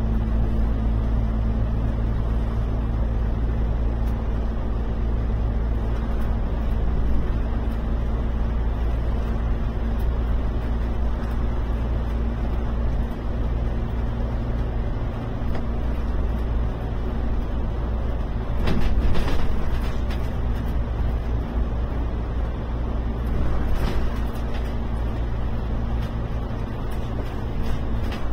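Alexander Dennis Enviro 500 MMC double-decker bus running steadily at cruising speed, heard from on board: a steady engine and drivetrain hum with tyre and road noise, echoing in a road tunnel. A brief louder rattle comes about two-thirds of the way through, and another a few seconds later.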